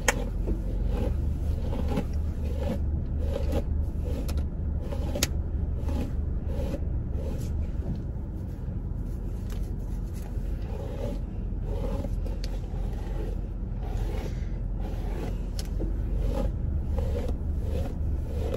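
Paddle brush raking through thick, dry natural hair in repeated strokes, about one to one and a half a second, easing off in the middle and picking up again near the end. A steady low hum from the car runs underneath.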